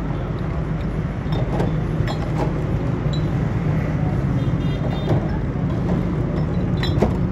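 Steady low rumble of road traffic and street noise, with a few light clicks and taps as a glass soda bottle is handled over plastic cups.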